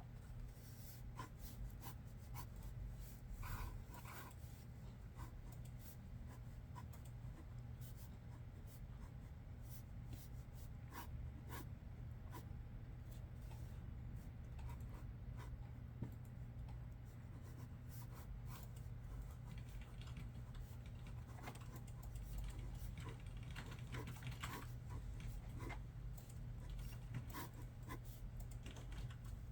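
Quiet office with a steady low hum, scattered clicks of computer keys and the scratch of a pencil on paper, heavier in stretches around 3 to 4 seconds in and in the last third.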